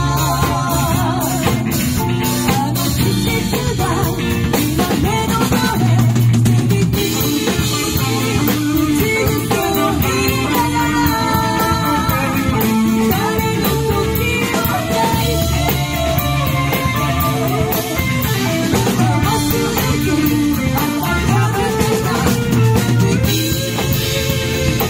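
Live rock band playing a pop song: a woman sings lead over electric guitars, electric bass and a drum kit.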